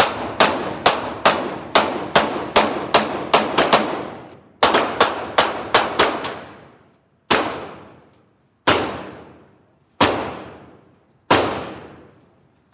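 Semi-automatic pistol gunfire in an indoor shooting range, each shot followed by a short echoing tail. A fast string of about a dozen shots comes in the first four seconds, then a few more after a brief pause, then single shots spaced about a second and a half apart.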